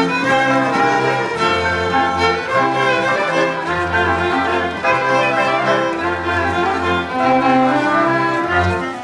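Folk string band of fiddles and double bass playing a Horňácko dance tune, the bass holding long notes about once a second under the violins.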